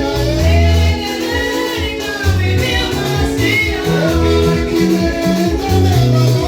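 Gospel worship music: voices singing over a repeating bass line and a steady beat.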